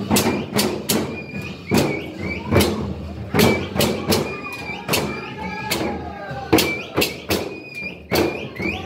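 Large hand-held frame drums beaten in a steady pattern of heavy strikes, often two close together about half a second apart, with crowd voices calling between the beats.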